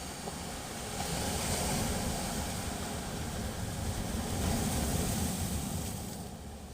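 Sea waves breaking and washing up on the shore: a noisy surge that swells about a second in and again around five seconds, then eases off.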